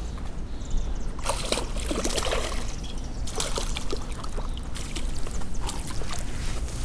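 Water splashing in irregular bursts as a hooked bass thrashes at the surface of a shallow creek while it is fought in.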